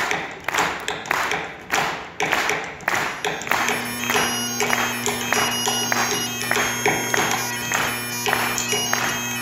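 A steady beat of sharp taps, about two a second, then bagpipes strike up about three and a half seconds in: the drones hold a steady low note under the chanter's melody while the beat carries on.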